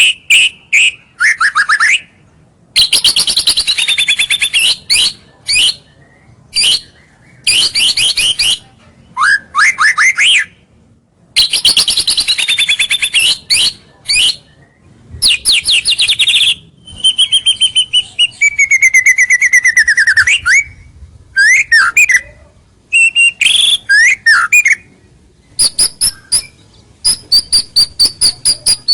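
White-rumped shama (murai batu) singing loud, varied phrases of fast trills, whistles and falling notes, with short pauses between phrases. It is a lure song, the territorial singing that draws rival shamas closer.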